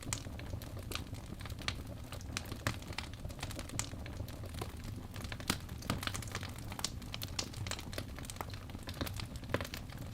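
Wood fire in a fireplace crackling, irregular sharp pops and snaps over a steady low rumble of burning.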